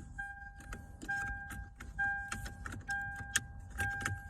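2007 Toyota 4Runner's dashboard warning chime beeping steadily, a little more than once a second, over light clicking and rattling from handling parts at the dash.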